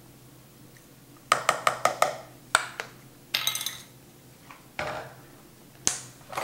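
Light clicks and clinks of kitchen utensils being handled over a mixing bowl: a measuring spoon and a small bottle, with a quick run of ticks about a second in and a few more scattered through the rest.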